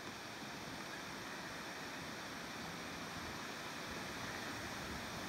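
Steady wind noise on the microphone, an even rushing hiss with no distinct events.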